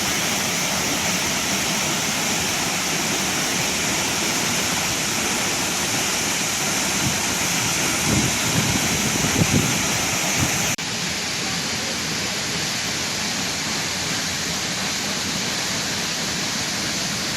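Waterfall in monsoon flow, water rushing steadily. There are a few low bumps in the middle, and the sound changes abruptly a little after that, becoming slightly quieter and duller.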